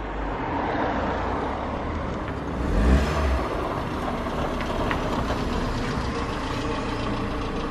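Peugeot 206 CC convertible's engine running as the car pulls up and settles to idle, with a brief louder low swell about three seconds in.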